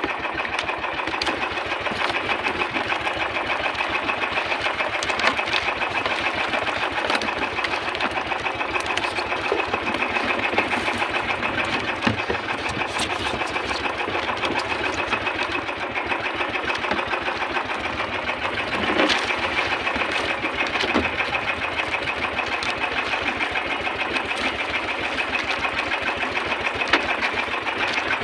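Small engine of a motorized outrigger fishing boat (bangka) running steadily under way, a fast, even mechanical rattle.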